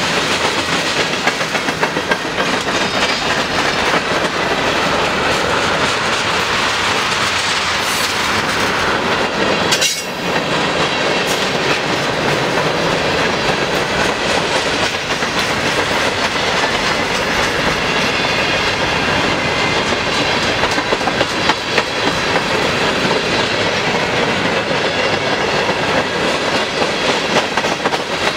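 Freight cars of a long mixed freight train, boxcars and then tank cars, rolling steadily past close by: the continuous rumble and rattle of steel wheels on rail, with rapid clickety-clack over the rail joints.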